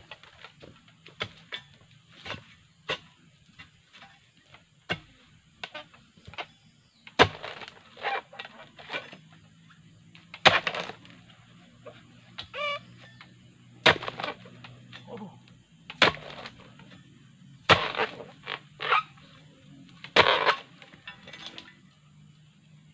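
A long-poled steel harvesting chisel stabbing and chopping into the tough frond and bunch stalks at the base of an oil palm: a string of sharp, irregular chops, some single and some in quick pairs.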